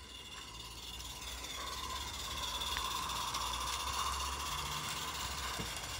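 Small live-steam garden-railway locomotive running past with a train of wagons: a steady steam hiss with light mechanical clicking of wheels on the track, growing louder as it approaches.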